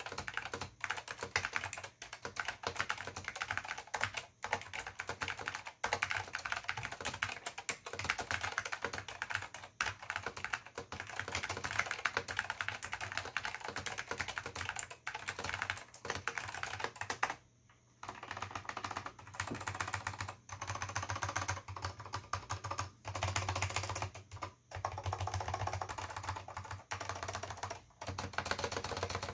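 Fast, continuous typing on an Apple Extended Keyboard II with salmon Alps SKCM switches: a dense stream of key clicks, with one brief pause a little past halfway.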